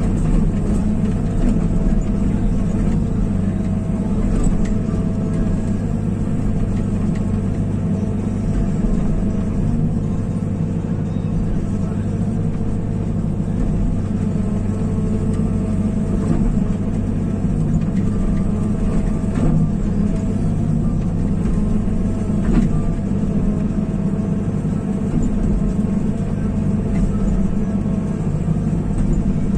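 Diesel engine of a digging machine running steadily under load while trenching, with a few faint knocks.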